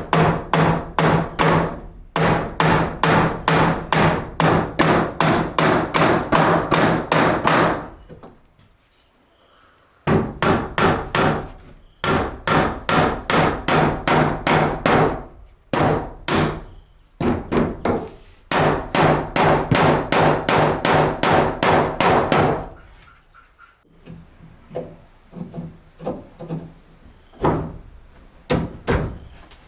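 Hammer blows on wood, struck in fast steady runs of about four a second with a break about eight seconds in, then scattered lighter blows over the last several seconds.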